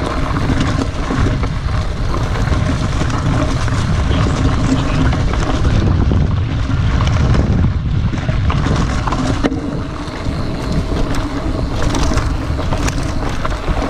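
Mountain bike ridden fast down a dirt forest singletrack: a continuous rush of tyre and wind noise on the mounted camera, with frequent small knocks and rattles from the bike going over bumps.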